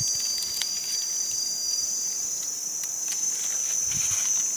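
Steady high-pitched drone of forest insects, with a second, slightly lower insect tone that stops about halfway through. Faint clicks and scrapes come from hands and a knife working mushrooms.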